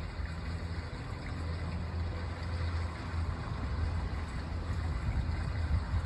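Outdoor park ambience dominated by a steady low rumble, with a fainter hiss above it.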